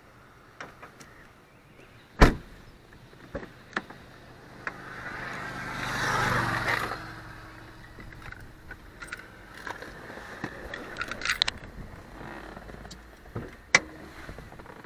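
Bodywork of an Opel GT roadster being shut and handled: a loud slam about two seconds in, a few small clicks, a swelling rush with a low hum in the middle, scattered clicks, and another sharp thud near the end.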